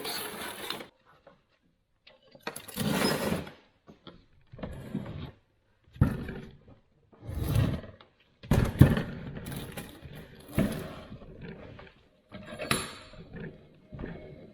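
Heavy cast-iron bench vise being turned over and worked by hand: irregular scraping and clunking of metal, with several sharp knocks, the last one near the end.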